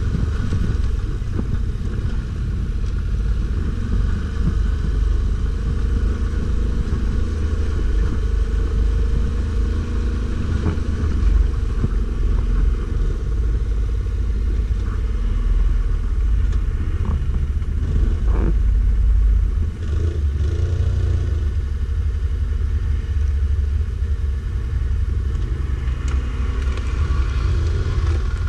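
Stels Guepard 850 ATV engine running steadily under way, a low rumble, with a few short knocks about two-thirds of the way through.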